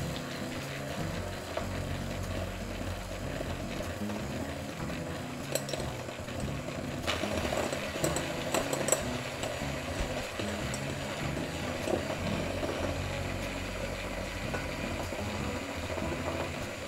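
Electric hand mixer running steadily as its wire beaters whip softened butter in a glass bowl, with a few sharp clinks of the beaters against the glass.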